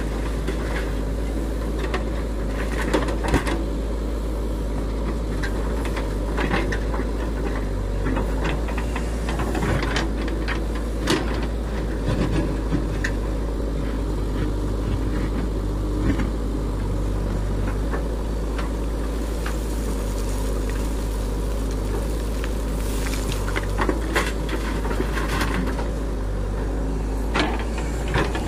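JCB 3DX backhoe loader's diesel engine running steadily as the backhoe digs and dumps soil, with scattered clanks, knocks and scrapes of the bucket and falling earth.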